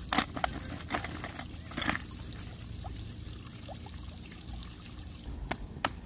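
Water trickling and pouring into a backyard pond, with several short sharp knocks, the loudest just after the start and near the end.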